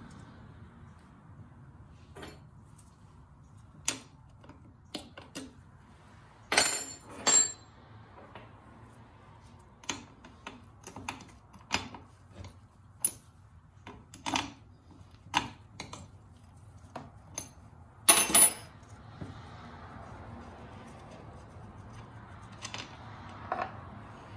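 Metal clicks and clinks of a T-handle spark plug wrench working on a Homelite XL chainsaw's spark plug as the plug is loosened and taken out. The sharp, irregular clicks come one by one. Two louder clinks come close together about a third of the way in, and another near three quarters through.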